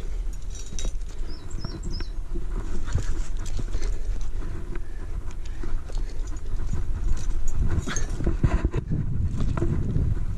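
Rock climber's breathing with the scuffs and knocks of hands, shoes and gear against the rock, over a steady low rumble of wind on a head-mounted camera's microphone.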